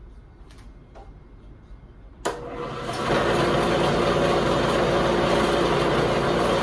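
Belt-driven electric motor of a Delta 46-204 wood lathe switched on about two seconds in. It comes on abruptly and spins up within a second, then runs steadily with a constant whir.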